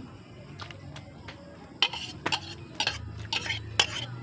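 Utensils clinking and scraping against a bowl and a large metal wok as garlic and lemongrass are tipped into coconut milk. The clinks are a series of short, sharp ones starting about two seconds in.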